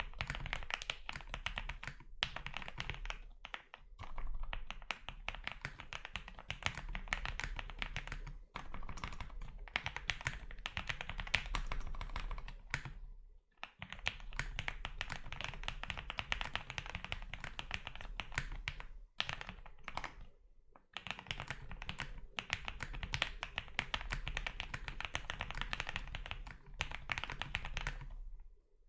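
Fast continuous typing on a Zoom65 mechanical keyboard with lubed and filmed SP-Star Meteor White linear switches, foam-dampened case: rapid key clacks in long runs broken by a few short pauses.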